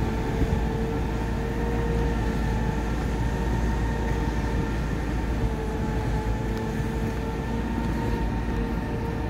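A heavy engine running at a steady speed: a constant low rumble with a steady whine on top that holds one pitch throughout.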